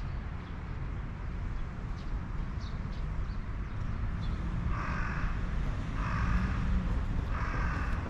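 A crow cawing three times, about a second and a half apart, in the second half, over a steady low vehicle rumble.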